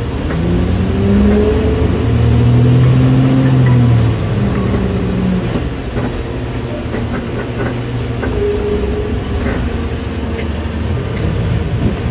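Garbage truck engine heard from inside the cab, revving up for about four seconds and then dropping back to a steady run.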